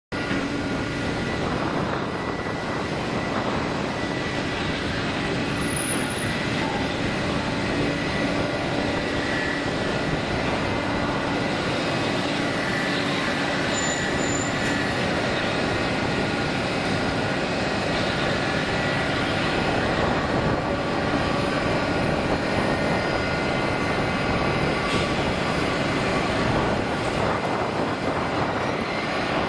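Airbus A321neo's two Pratt & Whitney PW1100G geared turbofans at takeoff thrust during the takeoff roll: a steady jet roar with a few constant whining tones in it, swelling slightly about two-thirds of the way through.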